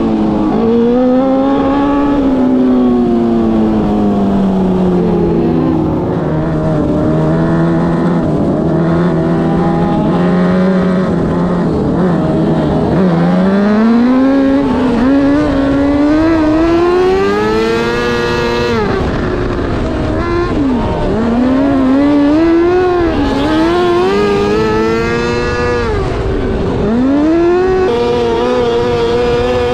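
Micro sprint car's 600cc motorcycle engine racing around a short oval. Its note falls off into each corner and climbs again along the straights, about every six or seven seconds.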